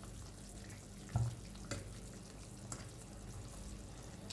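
Chicken wings simmering in a spiced water sauce in a pan, a faint steady bubbling, with one low knock a little over a second in and a couple of light clicks.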